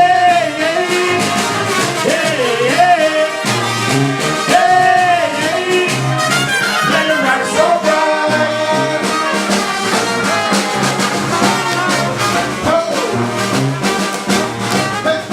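Brass band playing an instrumental passage: horn lines sliding up and down over a steady drum beat and a low bass line.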